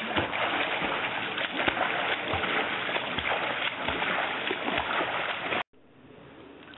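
A swimmer splashing through rushing river water, with a dull low thump of a stroke roughly every three-quarters of a second. The water noise cuts off abruptly near the end, leaving a much quieter outdoor background.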